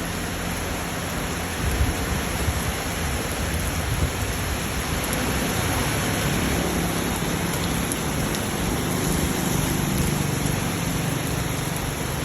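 Heavy rain pouring steadily in a rainstorm, with strong wind adding a low, uneven rumble that swells briefly about two and four seconds in.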